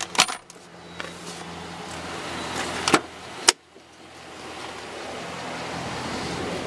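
Plastic lids and latches of a pickup cab's storage compartments clicking and snapping as they are opened and shut, with a loud snap about three and a half seconds in, over a steady hum and hiss.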